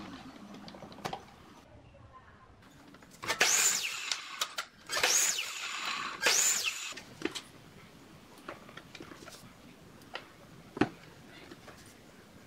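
Miter saw making three short cuts through a small wooden stick, each burst about a second long and rising then falling in pitch, from about three seconds in. A few sharp knocks of wood pieces being handled follow.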